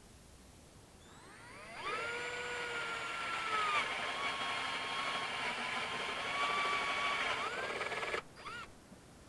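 Cordless drill boring a 5/8-inch hole through the soft plastic top cover of a Honda EU2000i generator. Its whine rises as it spins up about a second in, dips a little in pitch as the bit bites, then stops suddenly near the end, followed by a short blip of the trigger.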